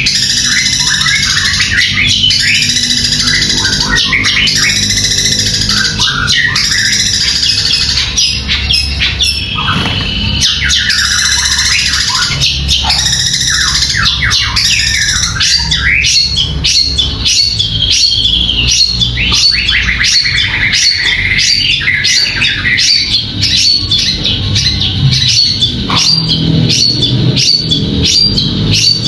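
Caged competition songbird singing a loud, fast, varied song of sweeping whistles and trills. From about halfway through it switches to a rapid run of short, sharp repeated notes.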